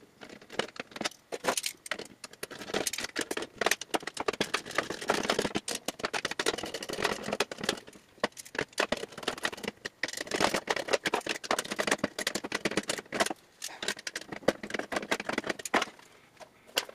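Small metal hardware and a steel ammo-can lid being handled and fitted, clinking and rattling with many quick clicks. The rattling comes in several busy stretches.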